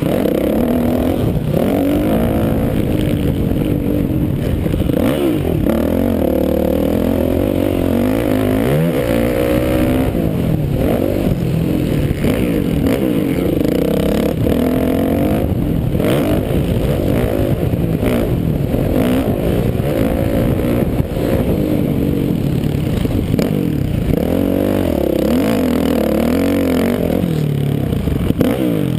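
Yamaha motocross bike's engine at race pace, revving up and dropping back every few seconds as the rider works the throttle around the dirt track, heard from the rider's helmet.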